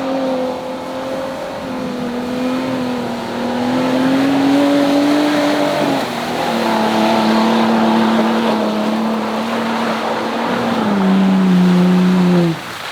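Jeep Wrangler engine running hard at high revs. Its pitch is held fairly steady, steps down twice, then drops off sharply near the end.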